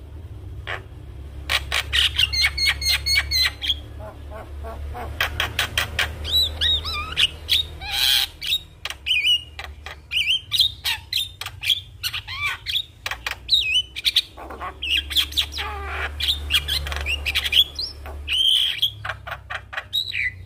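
Javan myna (jalak kebo) singing: rapid rattling clicks, then a run of short whistled calls that bend up and down in pitch. A steady low hum runs underneath.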